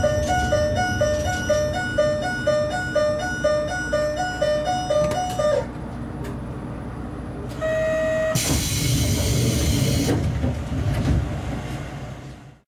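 A repeating two-note electronic chime melody plays for about five and a half seconds and stops abruptly, over the low rumble of a stopped diesel railcar. About two seconds later a short steady electronic tone sounds, then a burst of compressed-air hiss lasts about two seconds before the sound fades out.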